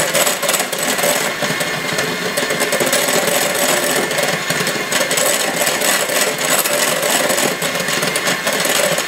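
KitchenAid electric hand mixer running steadily, its beaters whisking egg yolk batter in a glass bowl.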